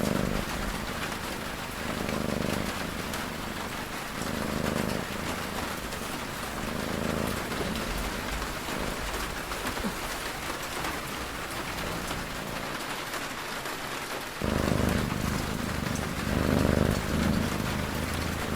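Steady rain falling, with a cat snoring in a slow, even rhythm, about one snore every two seconds; the snores grow louder about three-quarters of the way through.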